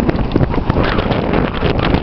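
Strong gusty wind buffeting the microphone, a loud rumbling rush that swells and dips with the gusts.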